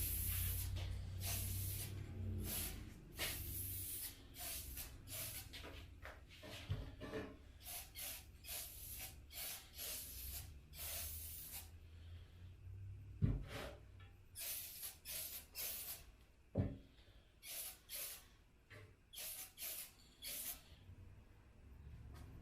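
Aerosol spray paint can hissing in many short bursts as metallic paint-and-primer goes onto the metal cart, with a couple of sharp knocks about halfway through.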